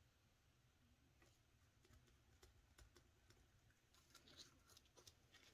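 Near silence, with faint rustles and light ticks of hands handling banknotes in plastic binder envelopes, a little stronger about four seconds in.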